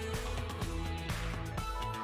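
Instrumental background music with a bass line and a steady beat.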